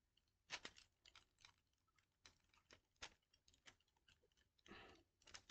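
Faint small clicks and light fiddling noises as a small ornament is handled and hooked onto a tabletop Christmas tree, with a brief soft rustle near the end.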